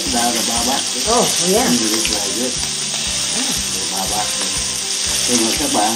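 Duck breasts searing in a hot frying pan, a steady sizzle of rendering fat, with background music playing underneath.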